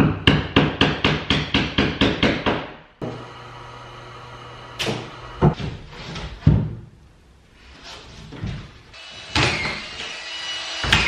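Plasterboard being fixed to a ceiling: a fast run of about a dozen hammer blows, some four a second, then a few single knocks. Near the end a cordless screw gun runs.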